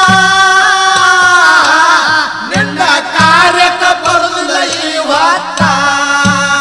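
Kannada dollina pada folk song: a voice singing long, held, wavering melodic lines over a steady beat of low drum strokes.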